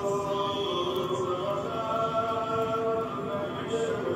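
A voice chanting in long, held notes that slide slowly between pitches, over a steady hiss of falling rain.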